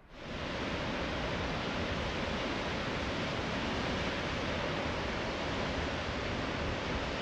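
Steady rushing of Palouse Falls, a tall waterfall plunging into its plunge pool, fading in just at the start and then holding even.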